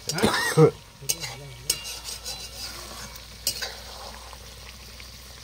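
A spatula stirring and scraping spiced chicken pieces frying in a pan for chicken kosha, the meat now nearly dry at the end of the slow-frying stage. The scraping is loudest in the first second, a few sharp clinks of the spatula on the pan follow, and a quiet sizzle runs under it all.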